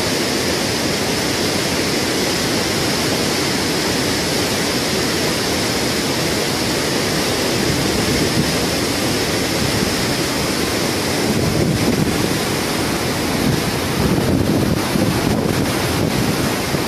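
Steady rushing of a fast-flowing, muddy river, with wind buffeting the microphone; the low rumble grows rougher in the last few seconds.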